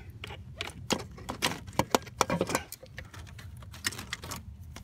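Irregular metallic clinks and light knocks of metal parts and tools being handled while a starter motor is worked back into place on a 2008 BMW 535i.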